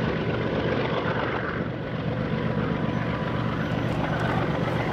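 Container freight train's diesel locomotives and cars rumbling steadily: a low engine drone under an even rolling hiss.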